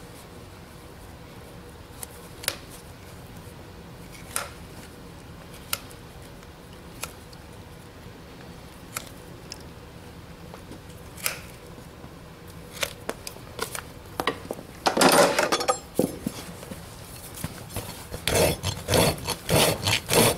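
Hoof nippers cutting horse hoof wall in sharp single snips a second or two apart, then a farrier's rasp scraping across the hoof in quick repeated strokes over the last couple of seconds.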